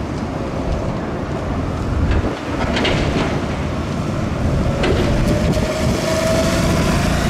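Street traffic with trams coming along the tracks: a steady low rumble with wind on the microphone and a few light clicks. A faint whine rises slowly in pitch in the second half.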